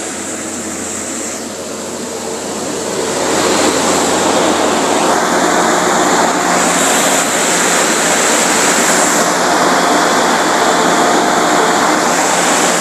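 High-expansion foam generator running, its fan blowing out a steady rushing stream of foam, with a faint hum under it; it gets louder a few seconds in.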